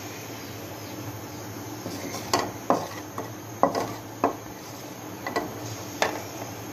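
A metal spoon clinking and knocking against a cooking pot, about eight separate knocks from about two seconds in, over a steady low hum.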